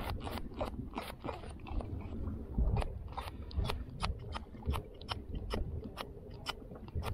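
Irregular sharp clicks and crunches as a puffed-up pufferfish is held in the hand and a hook is worked out of its mouth.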